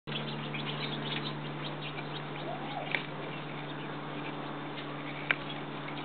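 Eurasian nuthatches giving short, faint high chirps, most in the first couple of seconds, over a steady low hum. Two sharp clicks, about three seconds in and about five seconds in, are the loudest sounds.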